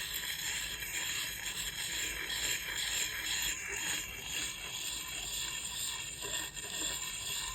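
Steel axe blade being rubbed by hand over a wet sharpening stone, a continuous scraping that swells and eases with the strokes.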